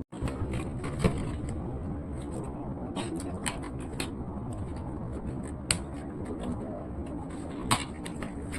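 Doll packaging being handled during an unboxing: irregular rustling and clicking of cardboard and plastic, with a few sharper clicks scattered through.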